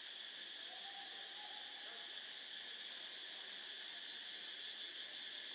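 Steady, high-pitched chorus of insects, with a faint quick pulsing at the top of the sound.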